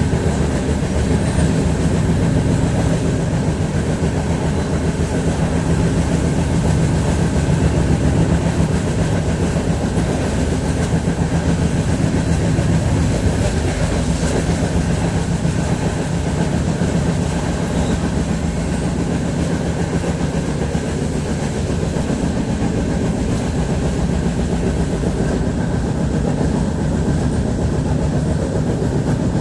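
A steady, loud mechanical rumble with a low hum underneath, unchanging throughout.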